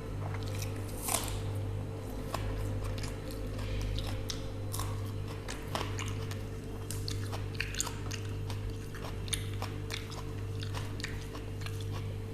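A person chewing a mouthful of rice and dal, with frequent short, sharp crunches, over a steady low hum.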